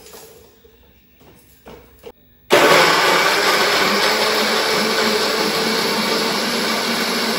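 Electric countertop blender switched on suddenly about two and a half seconds in, then running steadily and loudly as it grinds garlic and spices for a cooking paste. Before it starts, a couple of small knocks as the jar and lid are handled.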